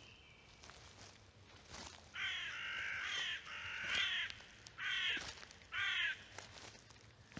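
A bird cawing: four harsh calls in quick succession, the first two longer than the last two.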